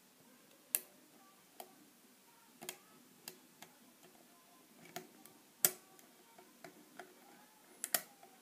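Lock pick and tension tool clicking and tapping in the keyway of a brass padlock as it is picked: about a dozen sharp, irregular metallic clicks, the loudest a little past halfway.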